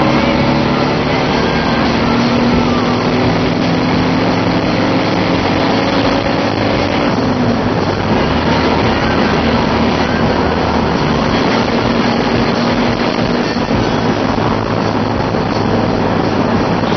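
Car engine and road noise heard from inside the cabin at highway speed; the engine note climbs for about seven seconds, drops, then holds steady.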